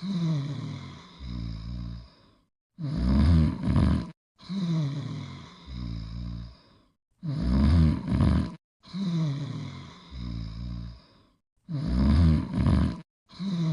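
Cartoon dog snoring in a looping cycle about every four and a half seconds: a loud, rasping two-part snore on the in-breath, then a longer, quieter out-breath that falls in pitch and ends in a low flutter.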